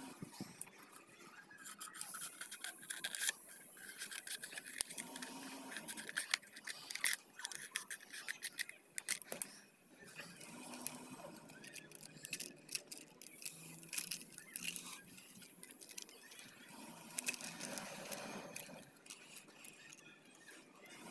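Thin plastic bottles crinkling, clicking and scraping against each other in irregular bursts as cut pieces are handled and pushed together.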